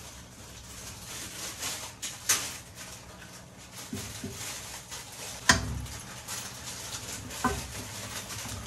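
Spatula knocking and scraping against a nonstick wok while an egg pancake fries, over a faint steady hiss of frying. Three sharp knocks stand out, the loudest about halfway through.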